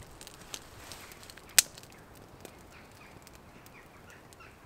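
Small wood fire crackling: a few sharp pops of burning wood, the loudest about a second and a half in. Birds chirp faintly in the background.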